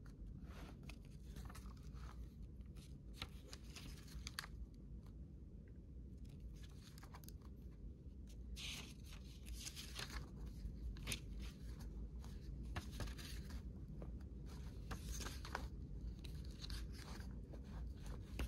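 Pages of an old bound book being turned and leafed through by hand: a run of faint paper rustles, flicks and swishes.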